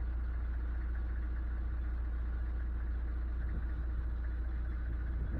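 Engine of a stopped vehicle idling, a steady low rumble.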